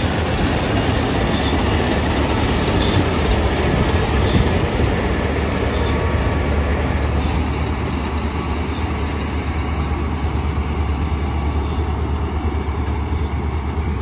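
Preet 987 combine harvester running while it cuts soybeans: a steady, loud machine noise over a deep engine hum. It grows duller in the second half as the harvester pulls away.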